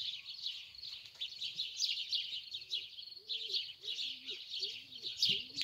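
Many small songbirds chirping and twittering in a dense, high chorus. From about halfway through, a dove's low cooing calls come in underneath.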